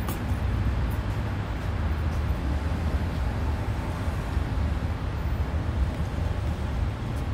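Steady low rumble with a hiss above it: outdoor urban background noise, with no meowing.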